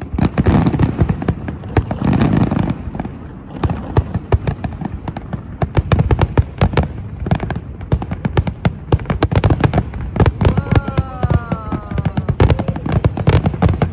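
Fireworks display: heavy booming shell bursts, biggest near the start, with dense rapid crackling throughout and a brief falling tone about eleven seconds in.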